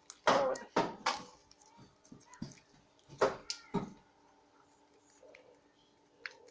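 A few short vocal sounds, in a cluster near the start and another about three seconds in, over a faint steady hum.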